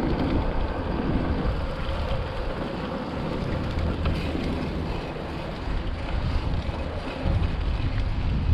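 Wind buffeting the microphone over a mountain bike's tyres rolling on a gravel track: a steady, noisy low rumble that gets louder about seven seconds in.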